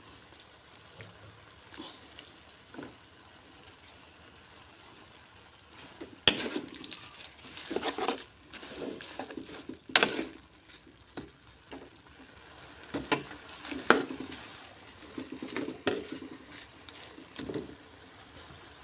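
Metal spatula scraping through raw shrimp in a wok and knocking against the pan, with a few sharp clanks and runs of short clinks.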